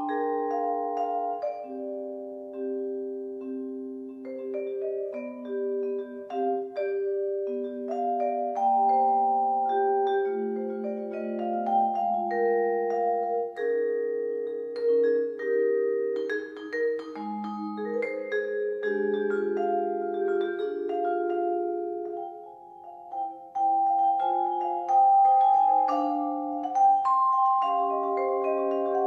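Solo vibraphone playing a blues, mallet-struck melody notes and chords ringing on and overlapping one another. The playing briefly drops quieter about three-quarters of the way through.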